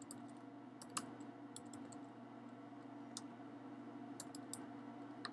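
Faint, sparse keystrokes on a computer keyboard at uneven intervals, one louder tap about a second in, over a faint steady low hum.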